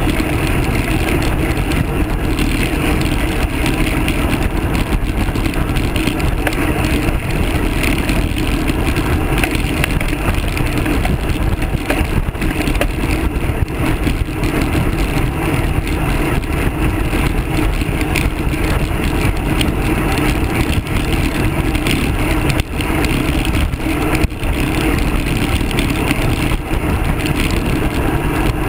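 Steady wind rushing over the microphone of a handlebar-mounted camera on a moving road bike, mixed with the rumble of tyres rolling on coarse chip-seal pavement.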